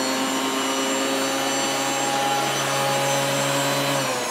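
JIB PT200A jointer-planer running free with no wood fed, its motor and cutter block giving a steady multi-pitched whine. About four seconds in it is switched off and the pitch starts to fall as it spins down.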